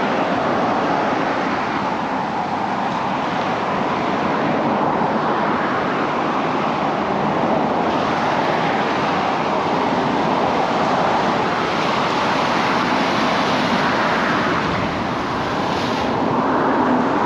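Ocean surf in a steady rush, slowly swelling and easing.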